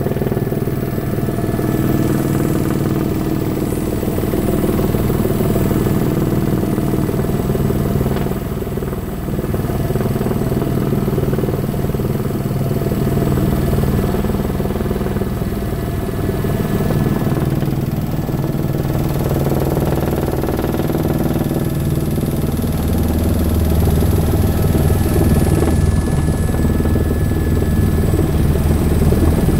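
Tour helicopter's turbine engine and rotor running steadily, heard from inside the cabin as the helicopter descends to land. The low hum grows a little louder over the last several seconds.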